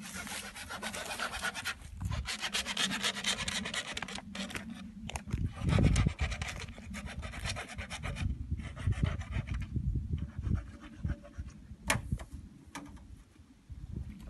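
Fast, rhythmic rasping scrapes for the first four seconds or so, then a heavy thump about six seconds in, followed by scattered knocks, scrapes and a sharp click.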